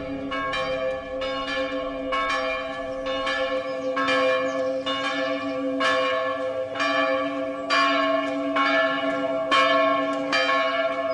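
Church bells pealing from a belfry, struck about twice a second, each stroke ringing on under the next so the tones blend into a steady hum.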